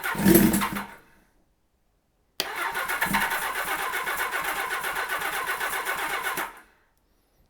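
Kawasaki Z1300 inline-six engine being cranked on its electric starter with the choke on: a short burst of cranking, a pause, then about four seconds of steady, evenly pulsing cranking that stops without the engine catching.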